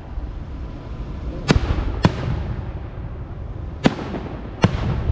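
Fireworks going off: four sharp bangs, two close together about a second and a half in and two more near the end, each trailing off in a rolling echo.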